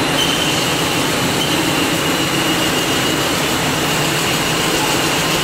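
Besta SK-520S CNC card-servo wood rotary cutting machine (veneer peeling lathe) running, a log spinning against the knife as veneer is peeled off: a steady mechanical drone with a thin high-pitched whine in it.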